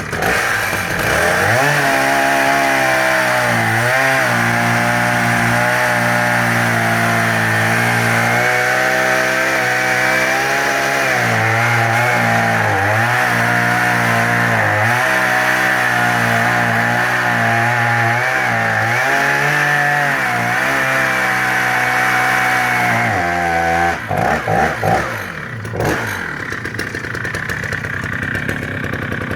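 Husqvarna 480CD 77cc two-stroke chainsaw running at high revs through cuts in wood, its pitch sagging and recovering again and again as the chain bites. Near the end the revs drop away, a few short throttle blips follow, and it settles back to idle.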